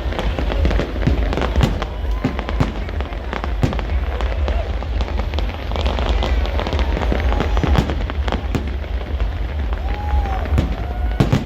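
Fireworks display going off, a dense, irregular run of bangs and crackles over a steady low rumble.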